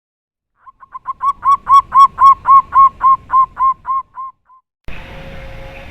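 A dove cooing a rapid run of about fifteen short, clipped notes, swelling in loudness and then fading away. About five seconds in, a steady background hiss begins.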